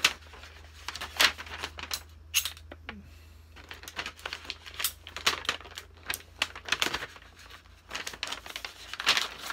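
White mailer package being handled and unwrapped: irregular crinkling and rustling with sharp clicks, sparse at first and busier from about halfway through.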